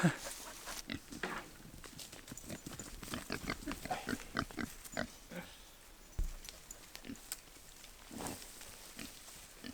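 Pigs grunting: a string of short, irregular grunts.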